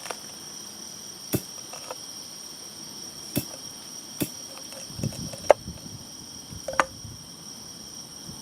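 A knife knocking on a cutting board several times, at irregular intervals, as bitter melon (goya) is cut. Insects chirr steadily throughout.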